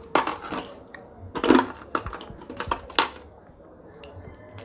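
Boiled crab shell cracking and crunching as it is bitten and broken apart by hand to get at the meat, in three crackling bursts, the loudest about a second and a half in.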